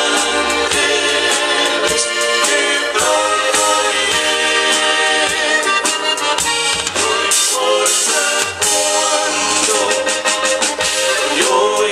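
Live band music: an accordion plays the lead melody over electric bass and a drum beat with steady, regular hits.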